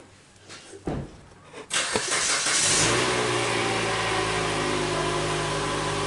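A motor starting up, then running with a steady hum.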